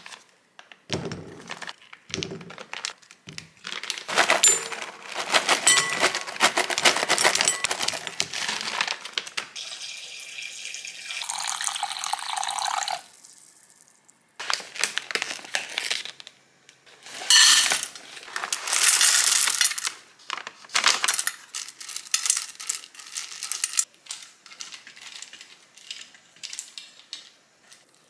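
Hard frozen rice cake pieces clattering and clinking into a glass bowl, with water from a tap running into the bowl for a few seconds partway through.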